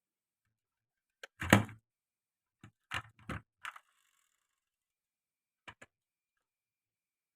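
Marbles clacking against a wooden marble run. There is a loud knock about a second and a half in, a quick cluster of clacks around three seconds, and two short clicks near six seconds.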